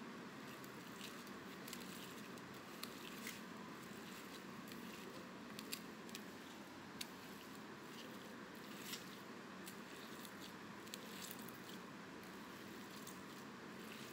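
Hand mashing and kneading fresh chhena cheese curd with semolina on a steel plate: faint, with scattered light clicks over a steady hiss.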